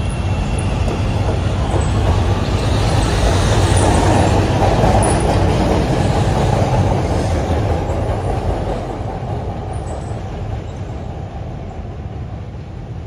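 CTA 5000-series rapid-transit train pulling out past the platform, a dense rumble of motors and wheels on the rails that builds to its loudest about four to seven seconds in, then fades as the train moves off.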